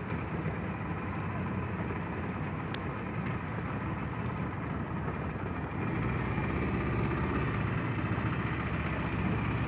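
Small boat's engine running steadily, a little louder from about six seconds in.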